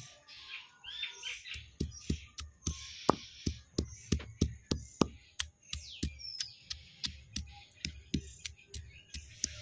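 A steady run of sharp knocks, about three a second, each with a dull thud, starting about a second and a half in, with birds chirping faintly.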